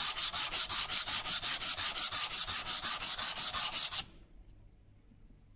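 A small wooden block is rubbed quickly back and forth on a sheet of abrasive paper, a rhythmic rasping at about six strokes a second, to flatten one face. The sanding stops abruptly about four seconds in.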